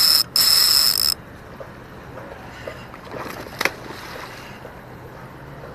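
Spinning fishing reel cranked, a loud whir with a high steady tone in two bursts over the first second. About three and a half seconds in, a short splash as the cast bait lands in the pond.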